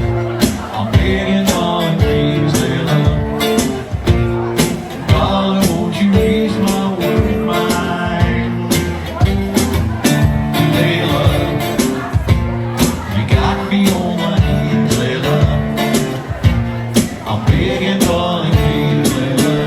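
A live rock band playing: a voice singing over guitar, with a steady beat of sharp hits about twice a second.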